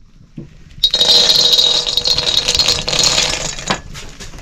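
A batch of acorns poured into a hot iron wok, a loud rattling clatter of nuts on metal starting about a second in and lasting about three seconds, then a few lighter clicks as they settle.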